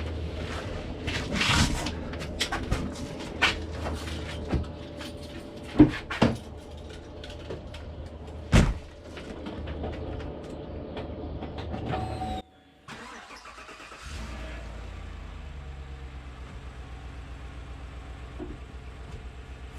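Chevrolet Silverado pickup engine idling steadily, with a run of sharp clicks and knocks over it for the first twelve seconds or so. After a brief drop-out the idle goes on alone with an even pulse. The truck is running to check the newly fitted flex-fuel sensor lines for fuel leaks.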